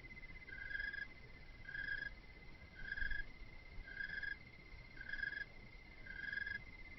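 Night insects calling: a continuous high, finely pulsing trill, with a separate lower chirp repeating about once a second.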